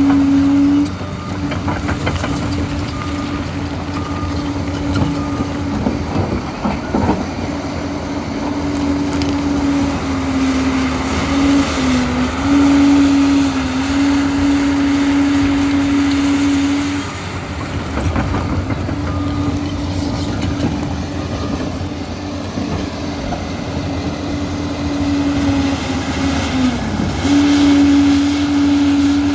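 Liebherr PR 746 crawler dozer working: its diesel engine runs with a steady loud hum that drops away and returns several times and dips briefly in pitch under load, over the rattle and rumble of its steel tracks.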